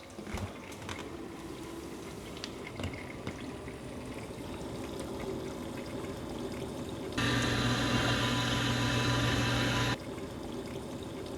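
Maytag MDB9959SKZ dishwasher in its wash cycle on a new pump and motor assembly: a steady wash of water spraying against the inside of the door, with no grinding left. About seven seconds in, a louder steady buzz with a low hum starts suddenly and cuts off about three seconds later.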